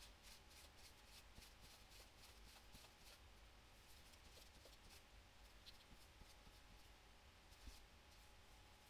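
Faint, quick, irregular rubbing and scrubbing strokes on a plastic toy figure being cleaned, with a small tick near the end.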